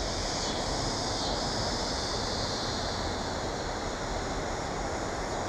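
Steady, even rushing noise of wind or moving air over open water, with no distinct splashes or knocks.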